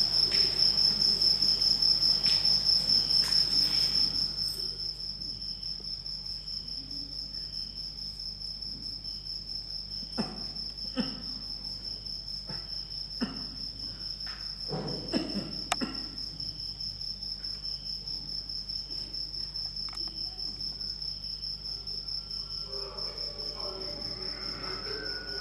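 Cricket chirping: a steady high trill with a rapid pulse, louder for the first few seconds and then softer. A few soft knocks sound around the middle, and music begins faintly near the end.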